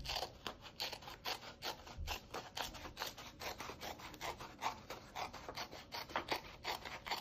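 Scissors cutting a sheet of paper along a straight line, a steady run of short snips about three a second. The scissors are not quite sharp.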